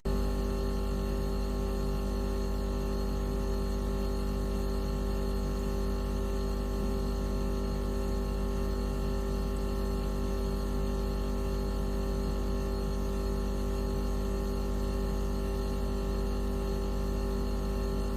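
Steady electronic mosquito-repellent tone made of several constant pitches over a strong low hum and a faint hiss, unchanging throughout; it switches in abruptly at the very start, replacing a different tone.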